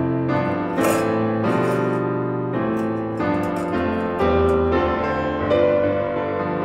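Piano music: struck notes and chords ringing on over a steady bass line.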